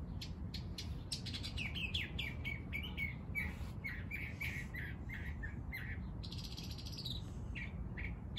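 Small songbirds chirping: a fast run of short, sharp notes with a drawn-out buzzy note about six seconds in, over a low steady rumble.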